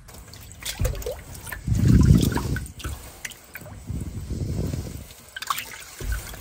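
Shallow pond water splashing and sloshing as hands hold a large giant snakehead down in it, with small drips. The biggest slosh comes about two seconds in, and a second swell comes around four to five seconds.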